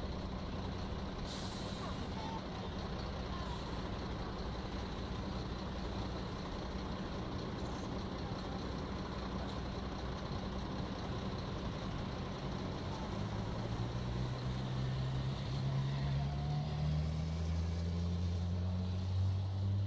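Heavy diesel engine idling steadily, with a short hiss of air brakes about a second in. From about two-thirds of the way through, the engines of an approaching convoy of fire engines led by a police van grow louder, their engine note rising.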